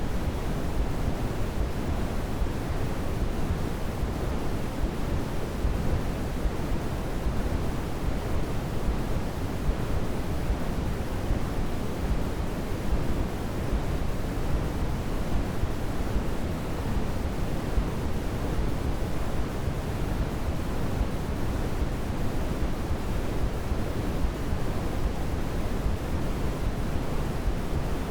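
Continuous white noise for baby sleep, steady and unchanging, with a deep, soft character where the low end is strongest and the highs are muted.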